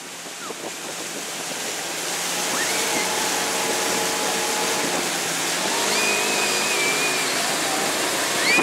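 Rushing water and wind from a motorboat towing an inflatable tube at speed, growing louder over the first few seconds. A few faint high-pitched calls sound over it.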